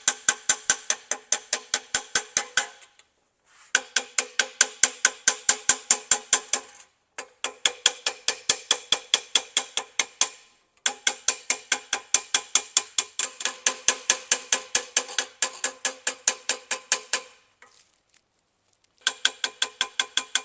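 Rawhide mallet tapping rapidly on a collapsed brass trombone slide tube over a steel dent rod, about four strikes a second in runs of several seconds with short pauses between. Each strike leaves the brass tube ringing. This is the tube being tapped down onto the rod to round out the collapse.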